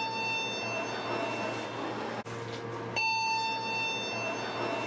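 Elevator chime ringing: a bell-like tone fading away, then struck again about three seconds in and fading slowly, over a steady low hum.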